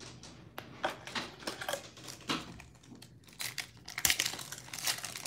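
Trading cards being handled and set down on a stack, a run of irregular light clicks and taps. Near the end a foil card pack is picked up and crinkles in the hands.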